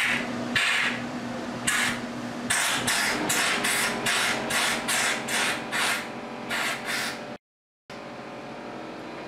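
Bottle brush scrubbing out a drilled anchor hole, in repeated scraping strokes, about one a second at first and then about two a second. The strokes cut off suddenly near the end, leaving a faint steady hiss.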